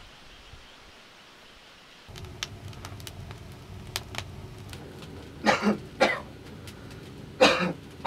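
A man coughing, two coughs and then two more about two seconds later, over the sharp crackle of a small wood fire burning in a clay firebox.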